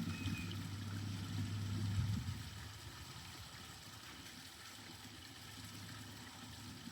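Backyard garden waterfall running steadily, with a low engine hum that fades out about two seconds in.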